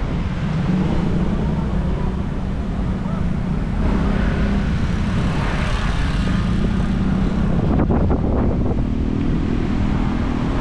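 Steady road traffic, engines humming, with wind buffeting the microphone.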